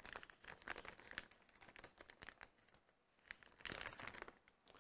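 Faint crinkling of plastic packaging being handled, in short spells of small crackles with a pause in the middle and a denser spell near the end.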